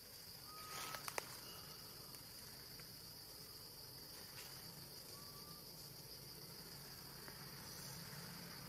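Faint, steady high-pitched drone of forest insects, with a few sharp clicks about a second in and a couple of short, faint whistled notes.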